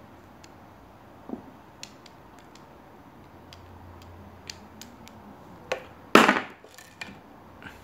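Light clicks and taps from a steel multitool being handled, with one loud sharp clack about six seconds in.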